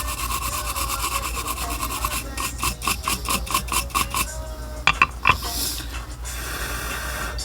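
Rapid back-and-forth scrubbing strokes over a circuit board as the freshly soldered charging-port contacts are cleaned. About five seconds in there are two sharp clicks, and a softer, steadier rubbing follows.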